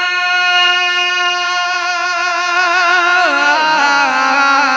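A man singing a sehra (Urdu wedding poem) unaccompanied, holding one long steady note. About three seconds in the note steps down in pitch and wavers into an ornament.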